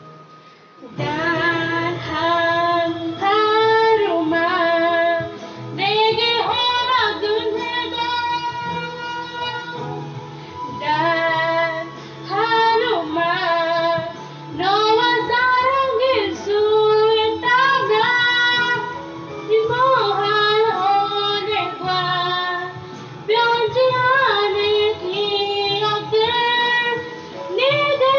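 A young girl singing a Korean pop ballad into a handheld karaoke microphone over an instrumental backing track. Her voice comes in about a second in, in phrases with wavering held notes.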